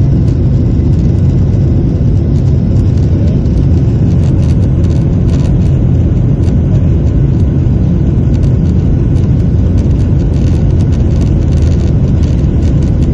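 Jet airliner engines at takeoff power, heard from inside the cabin: a loud, steady low rumble with faint ticks and rattles over it.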